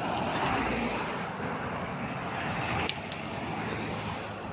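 Road traffic going by close at hand: a steady rush of car tyres and engines, a little louder about half a second in, with a short click about three seconds in.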